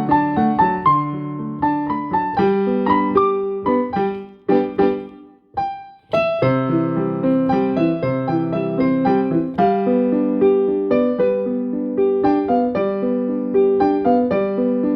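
Piano music: a continuous run of struck notes over lower chords. It thins out and dips almost to silence about five and a half seconds in, then picks up again half a second later.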